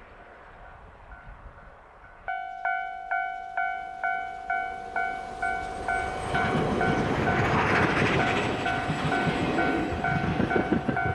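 A level-crossing warning bell starts ringing about two seconds in, an even ding at about two strokes a second. A train then comes up and passes over the crossing, its rushing rumble building to a peak near the middle and going on with clattering under the bell.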